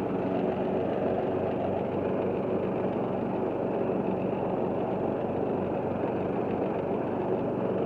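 Riding lawn mower's 535 cc twin-cam engine running at a steady speed.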